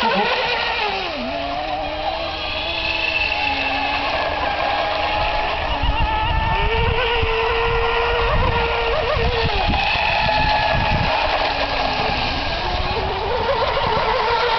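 A vehicle engine running under varying throttle. Its pitch drops about a second in, climbs again around six seconds in and holds high for about three seconds, then dips twice and rises again near the end.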